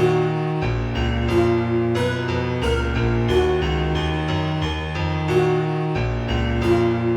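Instrumental music, an original composition, with a held bass line moving in steps beneath chords and a melody, new notes arriving at an even pace.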